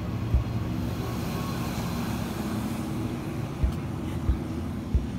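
Steady low rumble of a car driving along a road, with several short dull thumps, most of them in the last two seconds.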